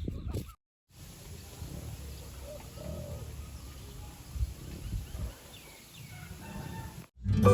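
Faint outdoor ambience with birds calling, over a low rumble, with a couple of dull low thumps about halfway through.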